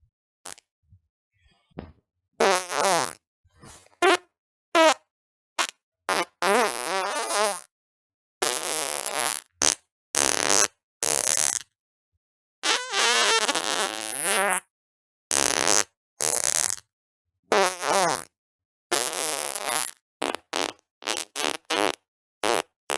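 A rapid string of about twenty fart sounds separated by silent gaps. They run from short pops to longer wavering, pitched toots, the longest lasting about two seconds.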